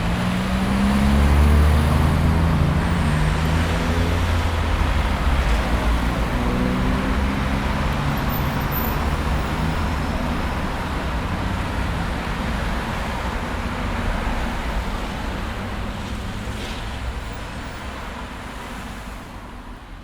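Road traffic: a steady hiss of passing vehicles, with a motor vehicle's engine loudest in the first few seconds, its pitch shifting as it goes by. The sound slowly fades out toward the end.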